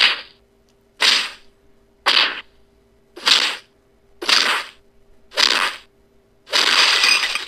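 Punch-and-kick fight sound effects: seven sharp hits about a second apart, the last one near the end longer than the rest.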